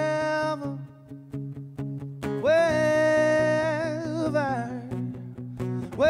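Live acoustic band: a voice holds long wordless notes over strummed acoustic guitars. One note ends about half a second in, a second swells up about two seconds later, wavers and falls away, and a third starts near the end.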